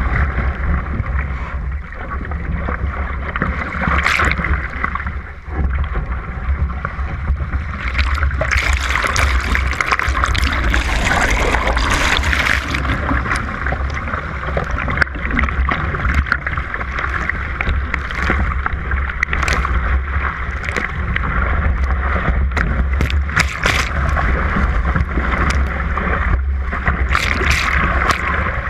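Surfski running through breaking surf: a steady rush of churning water and spray around the hull, with sharp splashes now and then and wind rumbling on the microphone.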